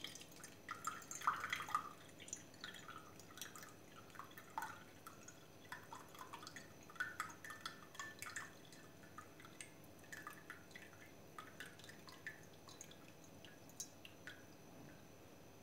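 Faint, irregular dripping and trickling of onion-and-garlic infusion as the liquid is strained off the chopped onion and garlic into an empty container.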